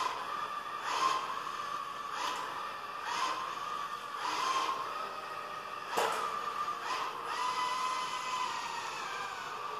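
Neato Botvac robot vacuum's drive motors whining steadily as it rolls across carpet, the pitch dipping briefly several times as it slows or turns. Short soft knocks come every second or two, the strongest about six seconds in.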